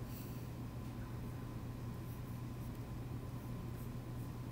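Library room tone: a steady low hum, with a few faint soft clicks of typing on a laptop keyboard and trackpad.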